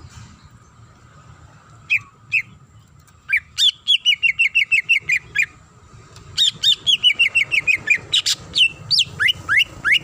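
Green leafbird (cucak ijo) singing: two single notes, then two fast runs of a dozen or so repeated down-slurred whistles, and sharp rising whistles near the end.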